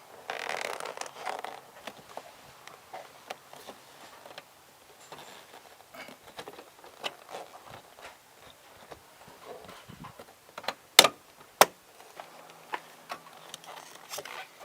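Small clicks, taps and rustling of parts being handled during work on a car's inner door handle. About eleven seconds in come two sharp, loud clicks half a second apart.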